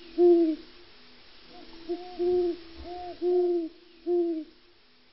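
An owl hooting in the forest: a short, low hoot just after the start, then a quicker run of about five hoots in the second half.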